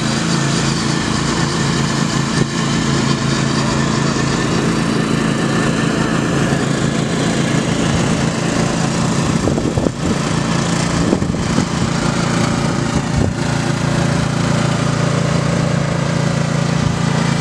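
Riding lawn mower engines running hard as the mowers race, a steady engine drone whose pitch wavers for a few seconds around the middle.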